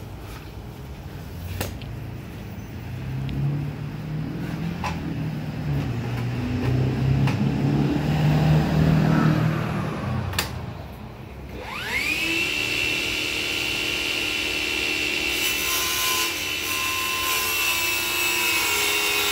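A portable table saw is switched on about twelve seconds in: its motor whines up to speed and then runs steadily with a high whine. Before that, a low rumble swells and fades, with a few sharp knocks.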